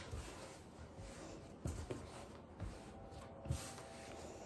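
Faint sounds of bread dough being kneaded by hand on a floured wooden board: soft thumps about once a second as the dough is pushed and folded, with light rubbing and shuffling between them.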